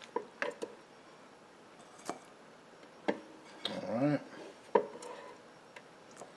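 Silicone spatula scraping and knocking against the inside of a Ninja Speedi's nonstick cooking pot as potato pieces are scooped out: a handful of light knocks and scrapes, the sharpest just before five seconds in, with a short pitched sound that rises and falls about four seconds in.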